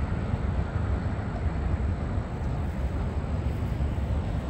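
Steady low rumble of road traffic, with no distinct events standing out.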